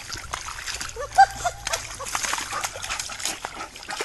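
A dog gives a few short whimpering calls about a second in, over continual splashing and sloshing water.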